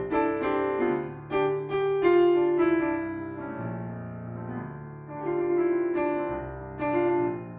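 Solo piano playing blues-tinged music: chords struck one after another and left to ring.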